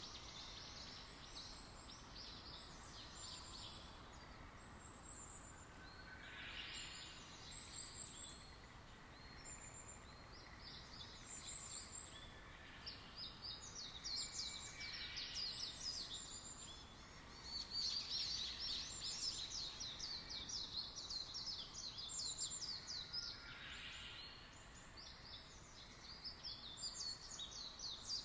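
Faint chorus of many small birds chirping and trilling, with rapid high notes overlapping throughout. Three times, a lower call sweeps down in pitch.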